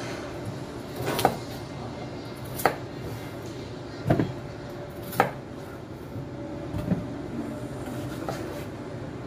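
Kitchen knife cutting through a peeled potato and a tomato, knocking on a thick wooden chopping block. About five separate knocks come at an uneven pace, a second or more apart, over a steady background hum.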